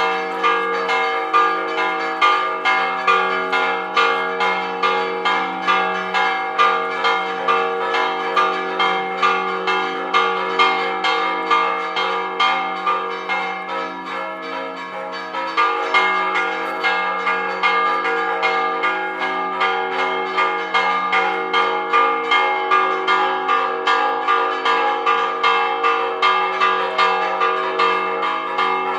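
Church tower bells ringing a repique: fast, festive, rhythmic strokes on several bells, their tones ringing on and overlapping. The strokes ease slightly about halfway through and then pick up again.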